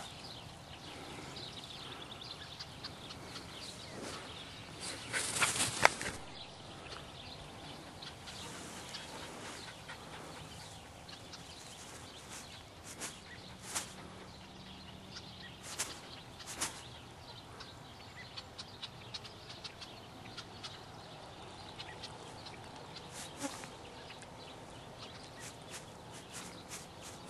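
A rat terrier panting over a steady outdoor background, with scattered small clicks and a brief louder burst of rustling about five seconds in.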